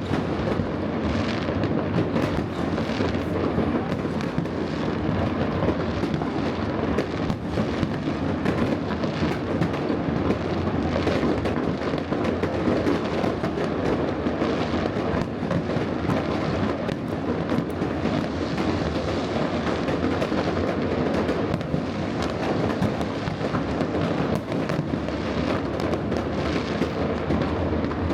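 Fireworks display: a steady barrage of overlapping bangs, pops and crackles with no pause.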